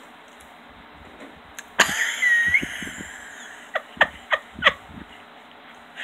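Glass cabinet door of a TV stand being pawed and rattled by a cat: a sudden scraping rush with a short squeak about two seconds in, then four sharp knocks in quick succession.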